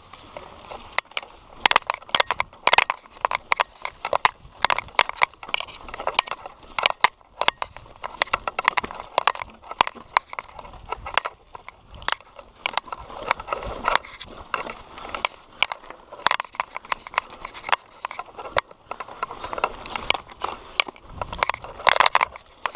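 Mountain bike clattering and rattling as it rides down a rough dirt trail, with many irregular sharp knocks as it jolts over bumps.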